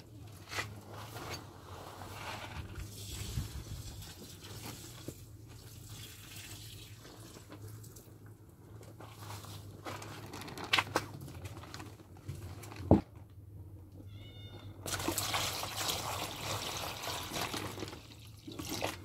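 Water poured from a plastic bucket into a plastic bowl, a steady rush lasting about three and a half seconds near the end. Before it, quiet handling noise with two sharp knocks, and a faint animal call just before the pour starts.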